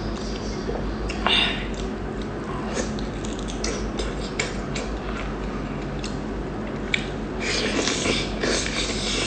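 Close-up eating sounds: chewing with many short wet clicks, and light clinks of tableware.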